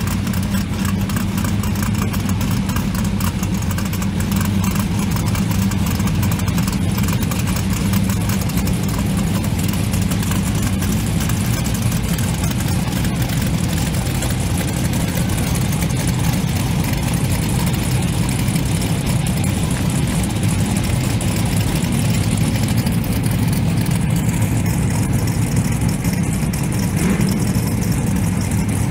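Twin-turbocharged Pro Line 481X V8 of a 1970 Ford Falcon XW drag car idling steadily, loud and low-pitched.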